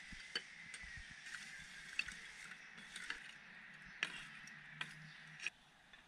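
A metal tool poking and raking charcoal briquettes under a grill: about five sharp clinks and knocks of metal on charcoal, spread over a few seconds, over a faint steady high tone.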